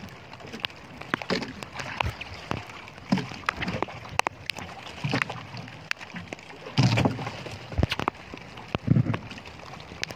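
Water sloshing and lapping against a small outrigger fishing boat, with irregular clicks and knocks throughout and two louder low thumps, about seven and nine seconds in.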